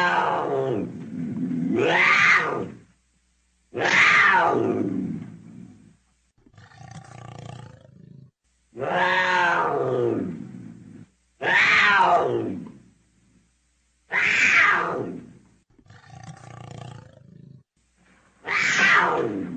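Leopard calling over and over: long calls that slide down in pitch, one every two to three seconds, with two softer, flatter calls among them.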